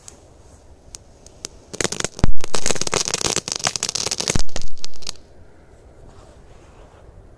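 Firework on the ground spraying a fountain of sparks: a loud crackling hiss with sharp pops starts about two seconds in and stops suddenly about five seconds in.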